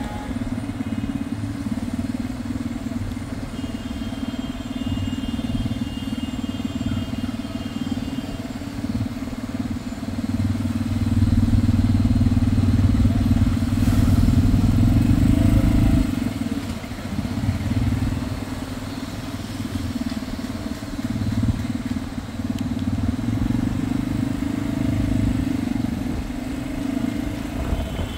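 Steady low rumble of a motor vehicle, growing louder for about five seconds in the middle, then settling back.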